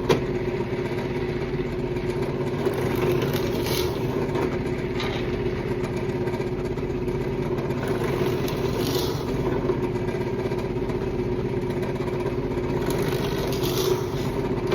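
Drill press motor running steadily with a constant hum while holes are drilled into the edge of a board.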